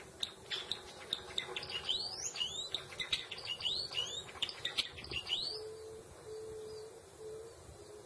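Java sparrow singing: a quick run of clicks mixed with short, high, rising whistled notes, ending about five and a half seconds in.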